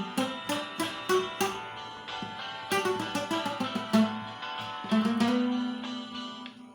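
Hymn melody played on an acoustic guitar sound: single plucked notes in a slow tune, ending on one long held note that fades away.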